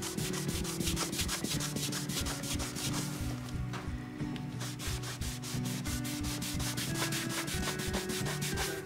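A cloth rubbed briskly back and forth over an oiled parquet floor, about five strokes a second, wiping off tea and coffee spill spots from a stain test of the oil finish. Background music runs underneath.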